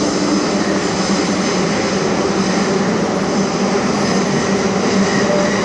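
Metro train running through a tunnel, heard from inside the carriage: a steady, loud rumble of wheels on rail with a low hum.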